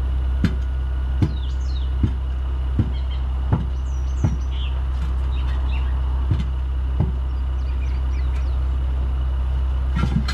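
A hammer tapping a truck tire's bead down onto the rim during mounting: a run of six taps about three-quarters of a second apart, two more after a pause, and a quick pair near the end, over a steady low engine hum.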